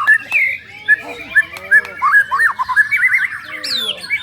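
Several caged white-rumped shamas (murai batu) singing over one another: a dense, unbroken tangle of quick whistled notes and rising and falling slurs.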